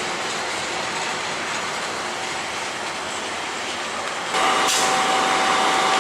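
Train running on the rails: a steady rushing rolling noise. About four seconds in, the sound changes abruptly to a louder steady hum with a few held tones.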